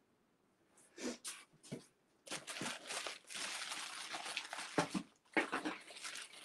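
Packaging rustling and crinkling as it is handled. A few faint clicks come about a second in, then a steady crackle of plastic and cardboard from about two seconds on, with a couple of sharper crackles near the end.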